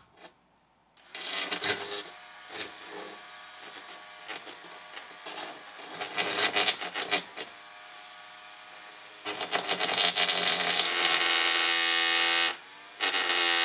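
Corded power tool working on the wooden loft floor. It runs with irregular clattering and rasping for several seconds, then runs steadily at full speed, stops briefly near the end and starts again.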